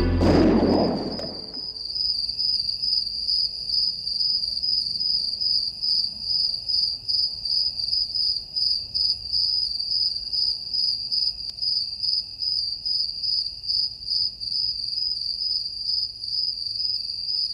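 Crickets chirping at night: a steady high trill that pulses two or three times a second. Music fades out in the first second or so.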